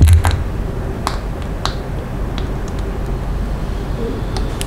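Mayonnaise squeezed from a plastic squeeze bottle into a small ceramic dish, with a quick run of sharp clicks and pops at the start and a few single clicks after. A steady low hum sits underneath.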